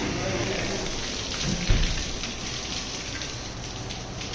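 Dairy plant machinery running: a steady hiss with a low hum underneath, and a single thump a little under two seconds in.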